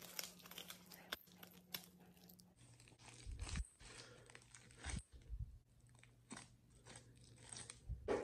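Faint sticky crackles and clicks of white soap-and-baking-soda slime being stretched and squeezed by hand, with a few soft low thuds as it is pressed together.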